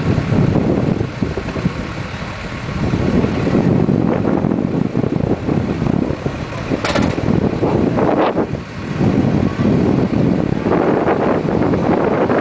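Wind buffeting the microphone aboard a moving boat: a loud, rough rumble that eases briefly twice and swells again.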